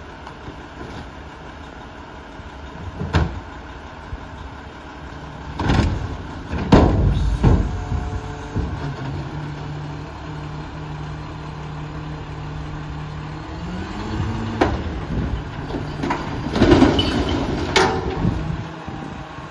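Mack LR garbage truck's diesel engine running as its Curotto Can arm is worked by hydraulics, with a steady hum that rises in pitch about two-thirds of the way through as the engine picks up under the lift. Sharp knocks and bangs from cardboard hitting the can and the arm and can moving come several times, the loudest about seven seconds in and again near the end.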